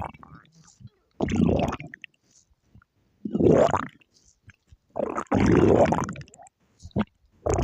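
Stomach growling: three gurgling rumbles a second or two apart, each under about a second long and wavering in pitch, then a short one near the end.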